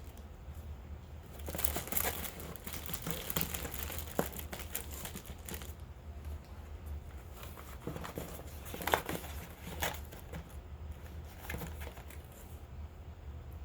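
Packaging crinkling and rustling as it is handled and unwrapped, in irregular spells with the sharpest crackle about nine seconds in, over a steady low hum.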